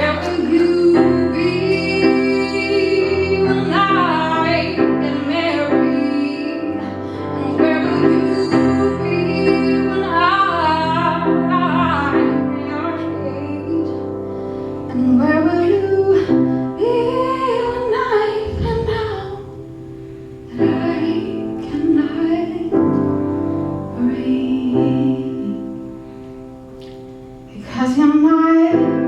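A woman singing a slow original ballad over piano, her voice gliding over held chords, with a softer stretch before she comes back in strongly near the end.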